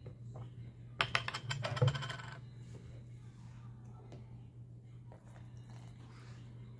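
Rapid plastic clicking and crackling as the cap of a plastic juice bottle is twisted off, then a faint trickle of juice being poured into a plastic cup.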